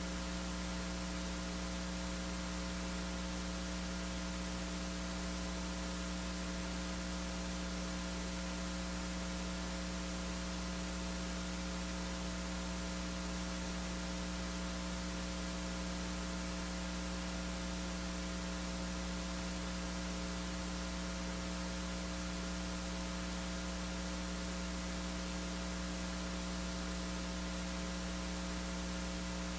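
Steady electrical mains hum with a hiss over it.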